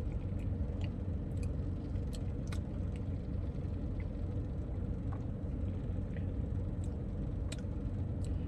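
Steady low hum of a car idling, heard from inside the cabin, with faint scattered clicks as a drink is sipped.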